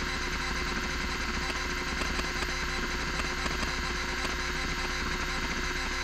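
Miniscribe 3425 20 MB MFM hard drive running, its spindle motor giving a loud steady whine while the stepper-motor head actuator chatters in rapid seeks across the platters during a disk test.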